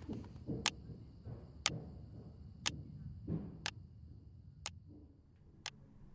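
A clock ticking steadily, one sharp tick a second, over soft low swells that fade out about halfway through.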